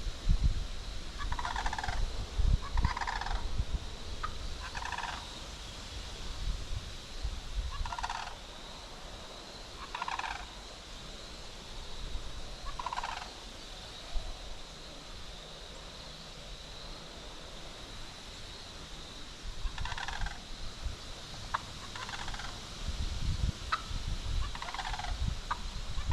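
Wild turkey toms gobbling, about ten short rattling gobbles. Several come close together in the first half, then a long pause, then more close together near the end. Low rumbling noise sits under the start and end, and a faint steady high whine runs throughout.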